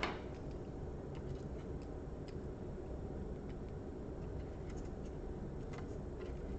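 Faint, irregular light ticks and clicks of small laptop parts and a screwdriver being handled during reassembly, over a steady low hum.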